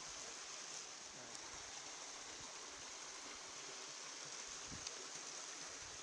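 Faint, steady rushing outdoor ambience, like distant running water, with a soft low thump a little before the end.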